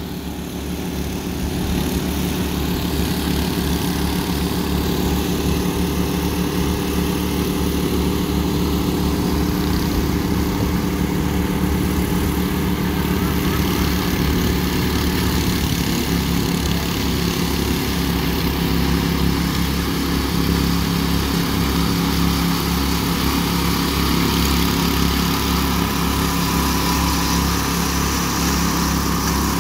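Several walk-behind power trowels (concrete "helicopters") with small petrol engines running steadily as they float fresh concrete, one close by; the sound grows a little louder over the first two seconds.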